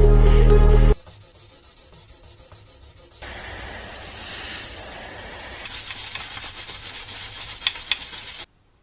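Background music stops about a second in, giving way to quick rhythmic rubbing strokes, several a second, typical of sanding a car body. Then a steady spray hiss begins, grows louder about halfway through, and cuts off suddenly near the end.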